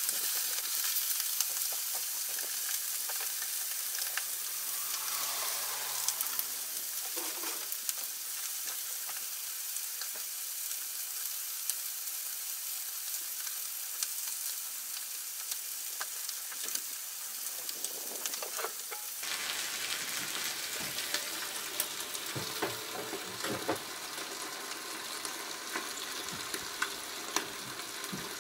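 Chicken thigh pieces sizzling in a hot griddle pan on a cassette gas stove, a steady hiss with scattered small pops and crackles.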